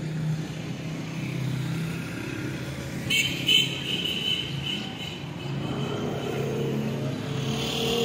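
Road traffic of cars and motorcycles with their engines running, growing louder toward the end. Two sharp knocks sound about three seconds in.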